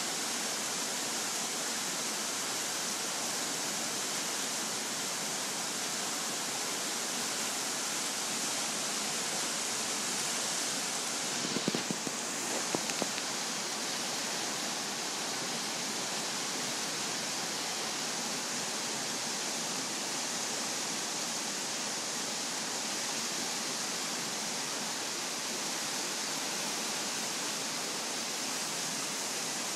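Flood-swollen creek rushing in white water, a steady hiss of running water. A few brief knocks near the middle.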